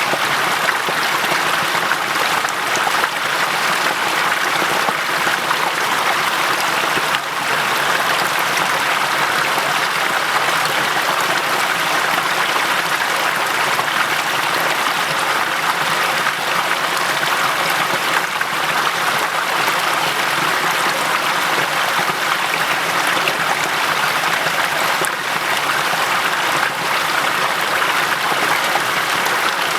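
Waterfall and its rapids: water pouring and running in a steady, unbroken rush.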